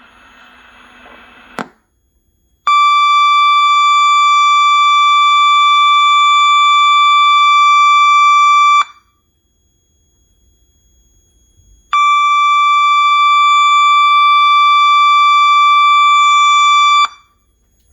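Fire alarm voice-evacuation system's alert signal: two long, loud, steady single-pitch tones of about five to six seconds each, with a pause of about three seconds between them. A short click comes about a second before the first tone.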